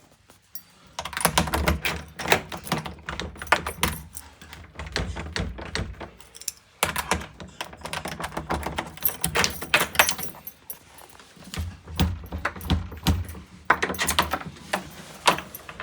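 Quick metallic clicks, rattles and knocks from keys and door lock hardware being worked by hand. They come in four bursts of a few seconds each, with short pauses between.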